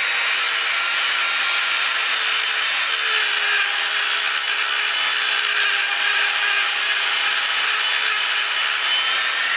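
Dremel rotary tool with a grinding stone running at high speed against a brake shoe, grinding down the old rivet heads so the worn lining can be removed. A steady motor whine with a continuous grinding hiss.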